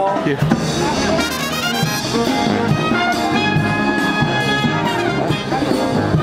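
Live brass band playing a tune, with a sousaphone on the bass line.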